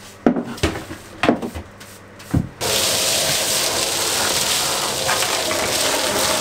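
A few separate knocks, then about two and a half seconds in a workshop dust extractor starts suddenly and runs steadily, its hose sucking wood shavings up off the floor.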